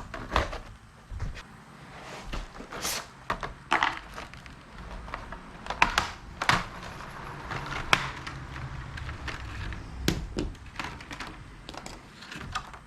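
Irregular plastic clicks, taps and rustles of a new Trico wiper blade being handled and taken out of its packaging.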